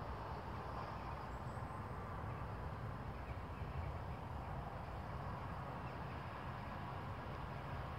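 Steady outdoor background noise, mostly a low rumble, with no distinct events.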